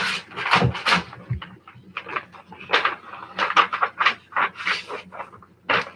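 A sealed paper bid envelope being torn open and the papers inside handled: a run of irregular paper rustles and crinkles.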